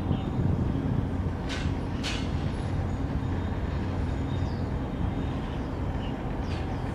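Low, steady drone of a passing large container ship's engines, with a couple of brief high chirps about a second and a half and two seconds in.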